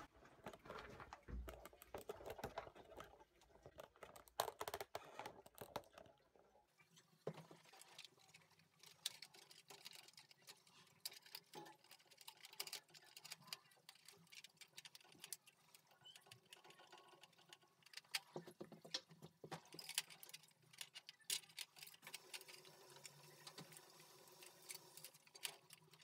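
Faint small clicks and rustles of fingers handling wires and plastic connectors in a boiler's control box, scattered and irregular.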